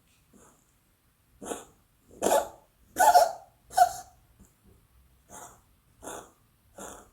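A domestic cat's coughing and gagging fit: a run of short hacking coughs, about one every 0.7 seconds, the loudest few about two to four seconds in. It is the cough-like gagging, as if about to vomit, that can come from a hairball, a respiratory infection, asthma or throat irritation.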